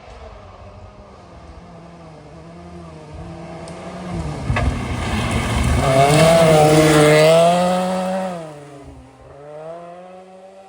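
Historic rally car at full throttle as it approaches and passes, its engine note climbing and growing louder to a peak about six to eight seconds in, then dropping in pitch and fading away.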